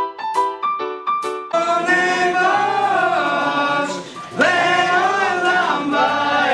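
A few keyboard notes, then a man singing a prayer melody in long, sliding phrases, with a brief pause a little past the middle.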